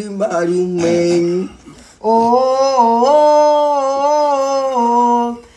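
Wordless singing in long held notes: a first note lasting about a second and a half, then after a short break a long note that steps up in pitch midway and back down near the end.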